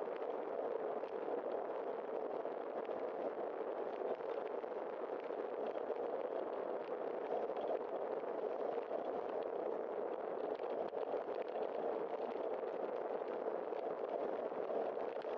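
Steady rushing noise of bicycle tyres rolling on wet pavement during a ride, with no change in level.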